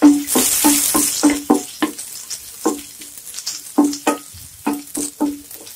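Minced garlic and ginger frying in hot butter in a pan: a loud burst of sizzling in the first second that settles to a quieter sizzle. A wooden spatula stirs and knocks against the pan two or three times a second, each knock with a short ring.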